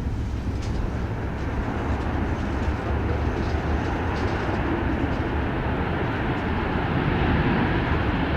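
Jet aircraft engines rumbling, growing gradually louder as the plane comes closer.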